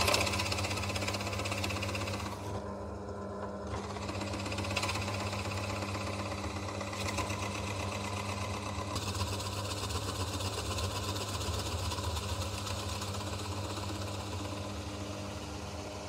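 Pillar drill running, its 35 mm Forstner bit boring a concealed-hinge cup hole into plywood: a steady motor hum under the rasp of the cutting. The cutting noise drops out for about a second around three seconds in.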